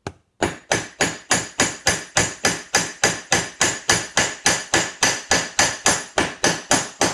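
Steel hammer peening a copper rivet that holds a steel plate to a leather bracer, with the rivet backed by an anvil. One light tap, then from about half a second in a steady run of sharp metallic strikes, about four a second, each ringing briefly, as the rivet head is spread over to capture the plate.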